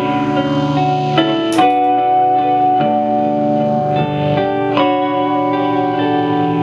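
Ambient electric guitar looping: layered sustained guitar notes ring on over one another while fresh notes are picked about a second in and again near five seconds. The Gibson LPJ is played through compressor, distortion, fuzz-phase and a Line 6 DL4 delay/looper into a Marshall MG15 amp with its spring reverb all the way up.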